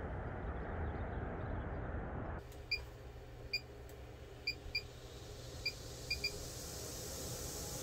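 Maxxair MaxxFan Deluxe roof vent's keypad beeping as its buttons are pressed: seven short beeps spread over about four seconds, some in quick pairs, over a low steady hum.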